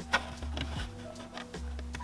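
Background music with a steady bass line, over scattered light clicks and taps.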